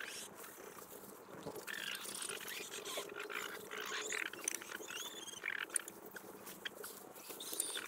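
Leafy wild lettuce stalks rustling and crackling as they are pulled and gathered into an armful by hand, in irregular bursts, with a few faint bird chirps midway.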